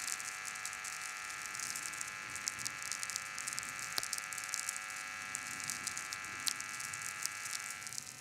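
Steady hiss and hum made of several fixed tones, with scattered sharp crackles over it. It cuts off suddenly with a click near the end.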